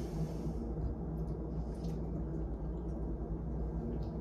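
Steady low hum of a quiet kitchen, with a few faint clicks of forks on plates.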